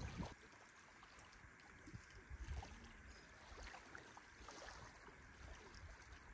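Faint outdoor ambience of gently running water, with a few light knocks.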